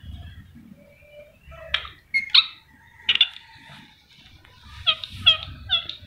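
Indian ringneck parakeet giving short, sharp chirping calls: a few scattered single notes, then three quick alike notes near the end.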